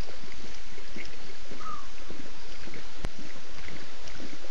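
Lions lapping water at a waterhole: a steady run of small, irregular wet splashes. A single sharp click comes about three seconds in.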